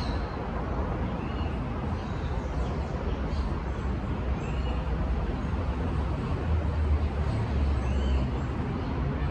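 Outdoor ambience: a steady low rumble with a few faint, short high chirps about three seconds apart.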